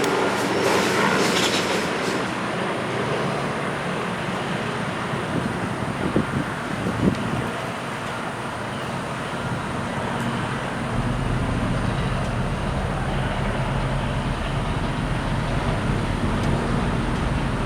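Road traffic passing: steady vehicle noise with an engine's hum, growing deeper and louder about two-thirds of the way in. Two short knocks come in the middle.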